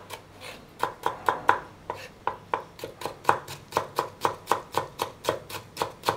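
Kitchen knife slicing salted pickled mustard greens on a cutting board: a steady run of sharp cuts, about four a second, after a short pause in the first second.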